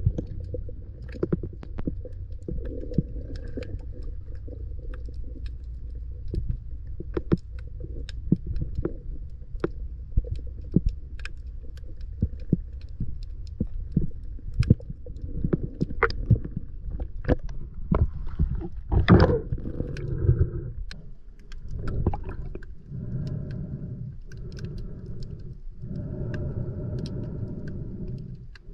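Underwater sound picked up by a camera in a waterproof housing: a steady low rumble of water with many sharp clicks scattered through it and one louder knock about 19 seconds in. In the last several seconds come a series of rushing sounds, each about two seconds long.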